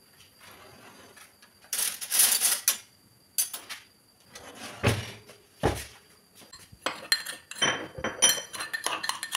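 Steel utensils clattering as a hand rummages through a metal cutlery drawer, with a dull thump about halfway. Then a steel spoon scrapes and clinks against a small steel mortar, scooping out crushed ginger.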